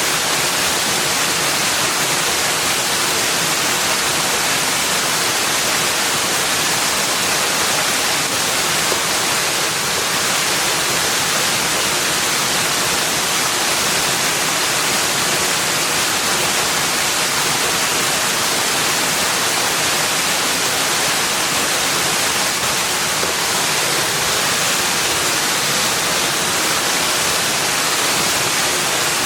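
Steady rushing of running water, an even hiss-like wash with most of its energy in the high range and no change throughout.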